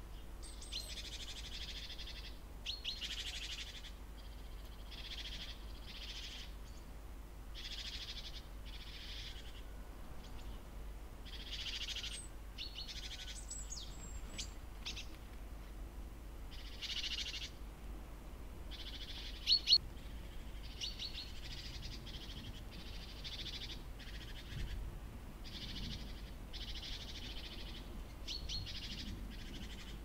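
Small songbirds calling over and over: short harsh, rasping calls about every second or two, with a few thin high whistled notes mixed in. Two sharp clicks come about two-thirds of the way through.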